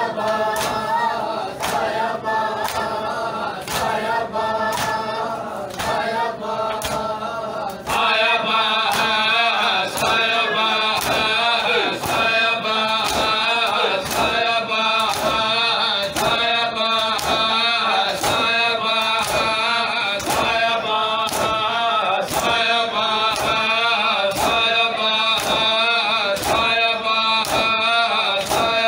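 Men's voices chanting a noha together, with hands slapping bare chests in matam in unison, about one and a half slaps a second. About eight seconds in the chanting gets suddenly louder and fuller.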